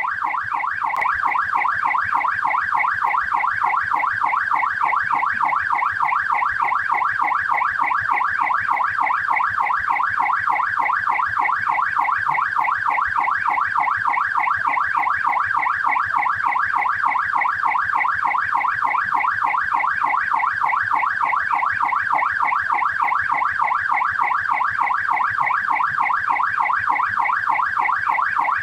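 Australian police car's electronic siren in yelp mode, sweeping rapidly up and down in pitch several times a second without a break.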